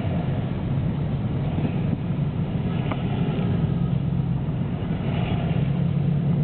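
A car's engine and road noise, heard from inside the car as it drives along: a steady low hum.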